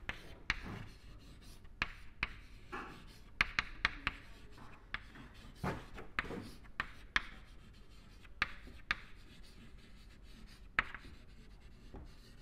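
Chalk writing on a chalkboard: irregular sharp taps and short scratching strokes as the letters go on.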